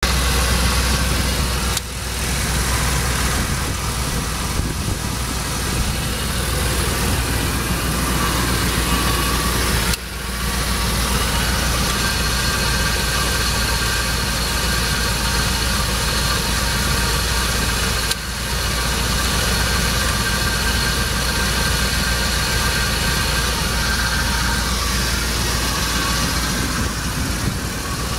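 The 1990 Dodge Ram 150's 5.2-litre V8 gasoline engine idling steadily, heard from the open engine bay.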